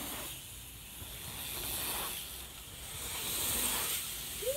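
BMX tyres rolling over packed dirt jumps: an airy, whooshing hiss that swells twice as the bike rides the line.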